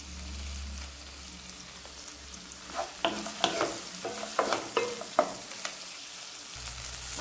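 Chopped onion, tomato and cashews sizzling in oil in a non-stick frying pan as they fry down for a curry gravy base. From about three seconds in, a utensil stirs and scrapes the pan in a run of irregular strokes.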